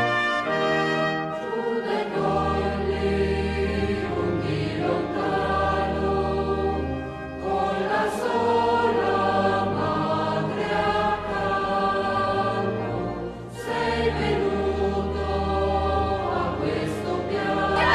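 Music: a choir singing held chords over orchestral accompaniment with a deep sustained bass.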